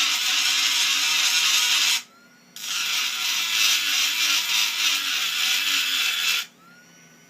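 Dental micro-motor handpiece grinding the ridge of a thin aluminium sword blade: a high-pitched grinding hiss that breaks off about two seconds in, starts again half a second later and stops near the end, with a faint rising whine from the handpiece in each break.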